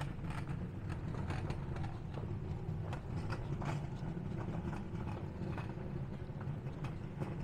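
Metal hand cart loaded with flattened cardboard rolling over asphalt: a steady low rumble from the wheels with irregular rattles and clicks from the frame and load.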